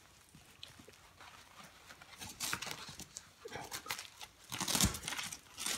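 Velcro and padded fabric on a moon boot's liner being folded over and pressed closed: short spells of rustling and crackling after a quiet first couple of seconds, with a dull knock near the end.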